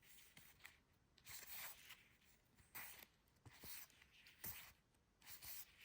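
Faint rustling of sheets of scrapbook paper being handled and leafed through, a soft rustle about every second.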